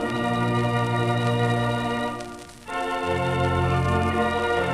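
Standaart 3/10 theatre organ playing sustained full chords, heard from a 78 rpm record. About two and a half seconds in, the sound breaks off briefly before a new chord comes in.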